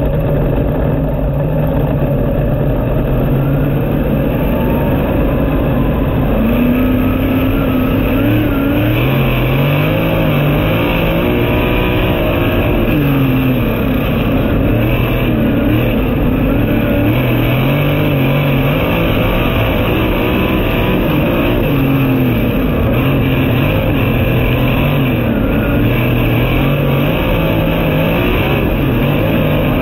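Onboard sound of a winged dirt-track sprint car's V8 engine running at low speed. About seven seconds in, its pitch starts rising and falling every two to three seconds as the throttle is worked up and down.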